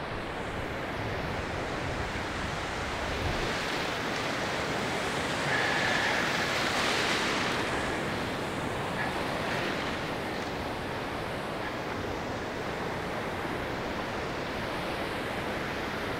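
Ocean surf breaking on a beach: a steady wash of waves that swells louder for a few seconds about a third of the way through.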